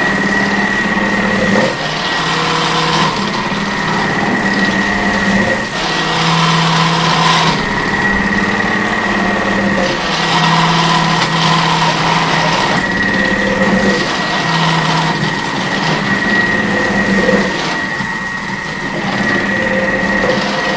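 Thermomix TM6 with its cutter attachment running in thin-slicing mode: the motor whirs steadily with a high whine. Its note dips and recovers every second or two as green chillies are pressed down the feeder tube onto the spinning slicing disc.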